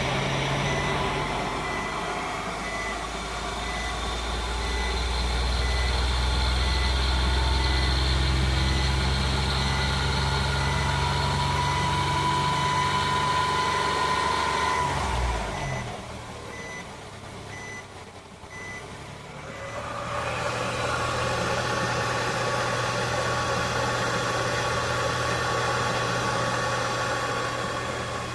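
Vehicle running with a steady drone and a whine that the owner suspects could be a transmission bearing. The whine rises slightly in pitch, then drops away about fifteen seconds in as the noise quietens, and the drone returns around twenty seconds in. A faint, evenly repeating beep sounds through the first two-thirds.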